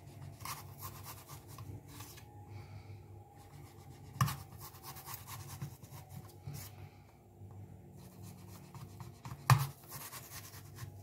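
Small kitchen knife cutting slits into a whole apple on a plastic cutting board: faint scratching, rubbing strokes of the blade through the fruit, with two sharper knocks, one about four seconds in and one near the end.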